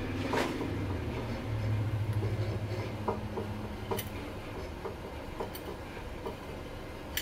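Scattered small clicks and taps of tools and small parts being handled on a workbench, over a low steady hum that swells briefly near the start.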